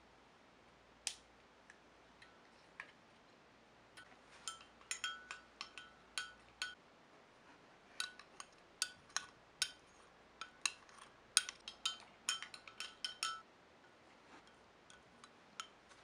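Metal spoon clinking against the sides of a glass mug while stirring cocoa powder into milk to dissolve the clumps. There is a single clink about a second in, then a quick, uneven run of ringing clinks from about four seconds to about thirteen seconds, tapering to a few light taps near the end.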